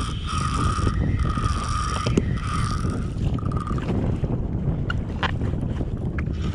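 Penn spinning reel whirring in repeated half-second bursts during the first few seconds as a hooked fish is fought, then stopping, with a few sharp clicks later. Steady wind rumble on the microphone runs underneath.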